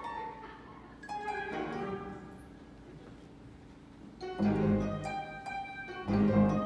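Live pit orchestra playing a soft passage of plucked and held notes with a short rising run. Two loud full-band chords break in about four and six seconds in.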